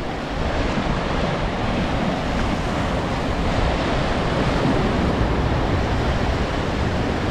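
Ocean surf making a steady rush, with wind buffeting the microphone.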